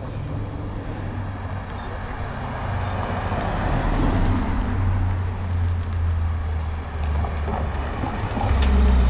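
Car engines passing slowly close by, a steady low rumble. It grows to its loudest near the end as a red Porsche 911 GT3's flat-six drives past.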